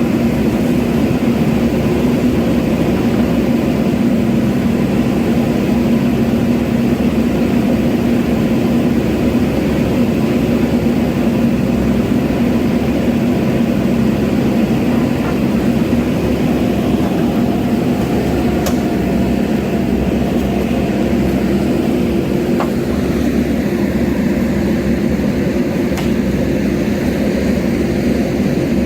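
JCB backhoe loader's diesel engine running steadily under load, with a few short clicks.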